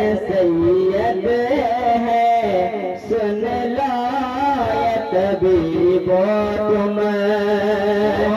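Men singing a naat, devotional Urdu verse, into microphones: a winding sung melody over a steady low held note, which breaks off briefly about three seconds in and again around six seconds.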